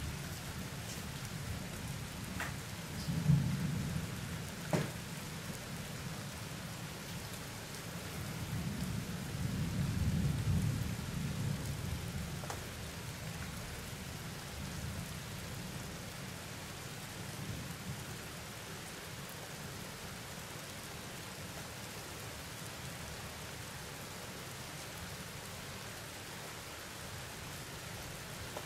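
Steady rain falling through a thunderstorm. Thunder rumbles briefly about three seconds in, with a sharp knock just after. A longer, louder rumble comes around ten seconds in and dies away.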